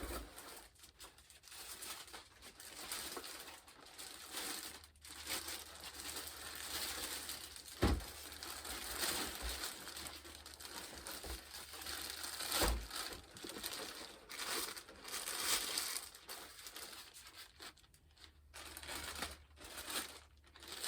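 Plastic packaging crinkling and rustling as parts are unpacked from the box, with two sharp knocks, about 8 and 13 seconds in.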